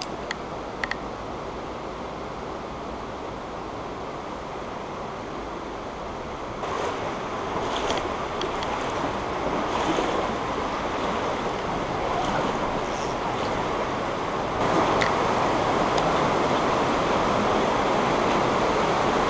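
Mountain stream rushing over gravel and rocks: a steady wash of water that grows louder in two steps, about a third of the way in and again about three quarters through. A few faint clicks sound near the start.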